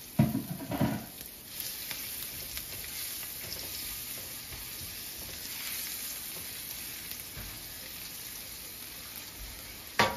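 Chopped garlic sizzling in hot frying oil in a nonstick skillet as it is stirred with a wooden spoon, a steady even hiss. A couple of knocks in the first second and a sharp click near the end.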